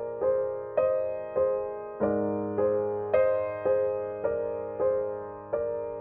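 Gentle background piano music: an even run of notes about every 0.6 s, each fading, with the harmony moving to a lower chord about two seconds in.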